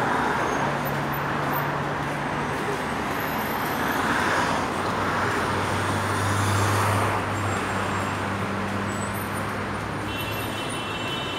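Road traffic: a steady wash of car engines and tyres from passing and queued vehicles, with a low engine hum underneath. Near the end a steady high-pitched tone comes in over it.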